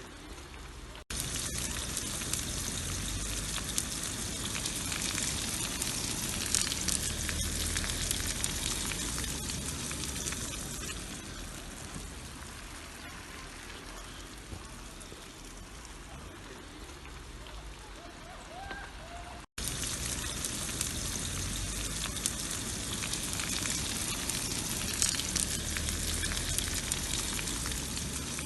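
Sucuk sausage sizzling and crackling in hot oil in a frying pan, with a steady spatter of small pops. The sound cuts out abruptly twice, about a second in and around nineteen seconds in, and comes back louder each time before slowly easing off.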